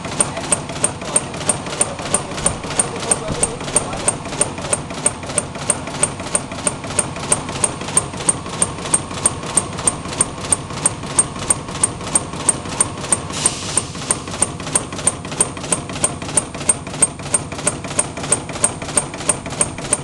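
Qutec 25-ton CNC turret punch press punching sheet metal in a steady run of sharp strokes, about three a second. A short hiss comes about two-thirds of the way through.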